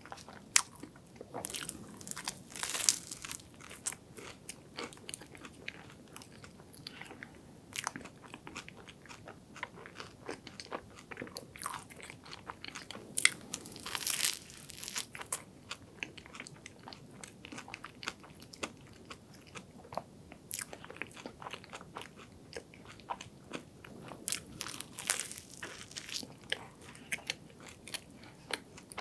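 Close-up crunching and chewing of a honey apple croffle, a croissant dough pressed crisp in a waffle iron. Crisp bites come in three louder bursts, near the start, in the middle and near the end, with softer chewing between.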